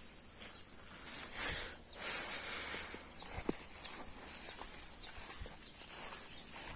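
A steady high-pitched insect drone, with short falling chirps now and then, over rustling footsteps through grass and undergrowth.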